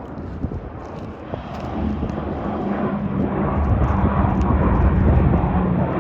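Firefighting airplane flying low overhead: a steady engine drone that grows steadily louder from about two seconds in as it approaches.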